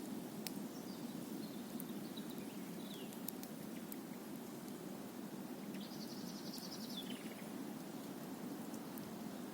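Campfire crackling with scattered sharp pops over a steady low rushing. A bird gives a short trilled call that falls away at the end, about six seconds in.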